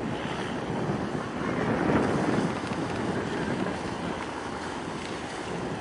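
Wind buffeting the microphone over open harbour water, a steady rushing noise that swells briefly about two seconds in.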